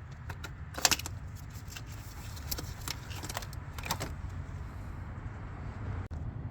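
Metal clinks and knocks as a car starter motor is worked loose and pulled out of the engine bay. There is one louder knock about a second in and a few lighter clinks later, over a steady low rumble.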